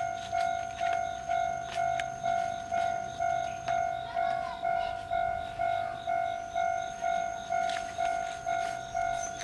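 Japanese railroad-crossing warning alarm ringing its repeated bell tone, an even clang about twice a second, each strike fading before the next.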